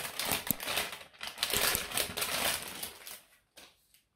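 Thin clear plastic packaging bag crinkling and crackling as it is handled and pulled open, dying away after about three and a half seconds.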